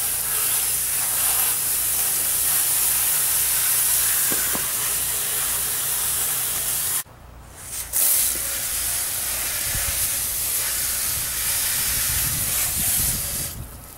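Water spraying steadily from the jets of a garden-hose-fed PVC under-washer, a continuous hiss that breaks off for about a second halfway through and then resumes.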